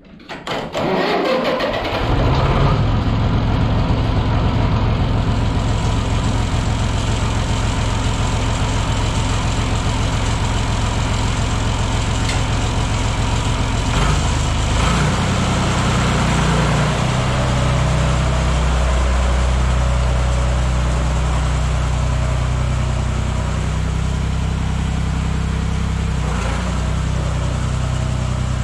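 International utility tractor engine being cranked by its starter, catching about two seconds in and settling into a steady idle. About halfway through it is throttled up and the tractor pulls away.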